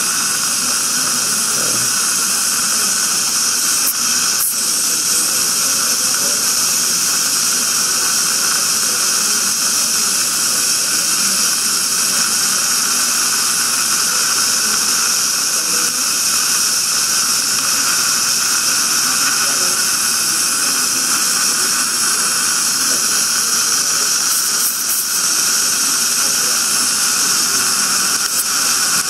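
Dental suction hissing steadily without a break.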